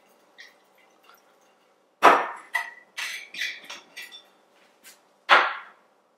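A metal water bottle being handled on a table: a hard knock about two seconds in, then a quick run of clinks with a brief metallic ring, then a second hard knock a little after five seconds.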